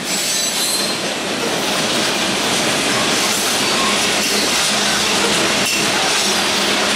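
Covered hopper cars of a freight train rolling past over a steel bridge: a steady rumble and rattle of wheels on rail, with a faint high wheel squeal and a single knock near the end.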